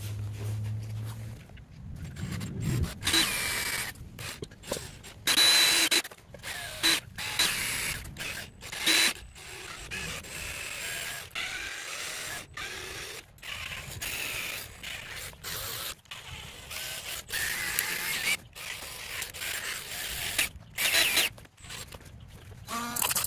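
Irregular mechanical clicking and rattling of hand work with tools on the battery's cell terminals and busbars, in short bursts with a few brief high squeals of metal.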